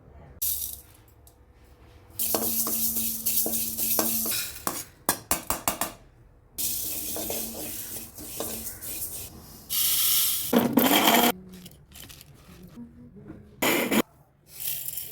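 Kitchen utensils and cooking vessels clinking, rattling and scraping in irregular bursts during food preparation, with a quick run of clicks about five seconds in.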